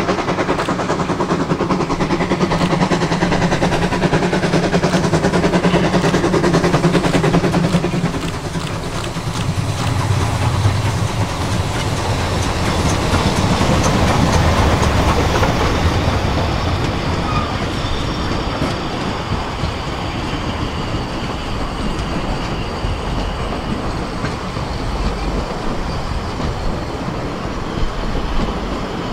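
Narrow-gauge 2-10-2 tank steam locomotive hauling a passenger train past at close range: a loud, steady low rumble as the engine passes. The coaches follow, rolling by with wheels clattering on the rails, and faint high-pitched squeals from the wheels come through in the second half.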